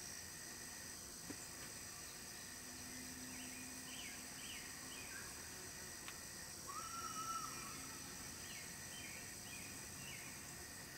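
Field and woodland ambience: a steady high insect drone with birds chirping in short bursts now and then. A longer whistled bird note about two-thirds of the way through is the loudest sound, and there is a faint click about a second in.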